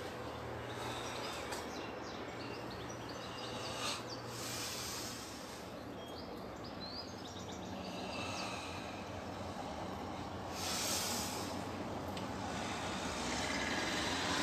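Steady outdoor background noise with a low hum, and short high bird chirps now and then. A brief louder rush of noise comes about ten seconds in.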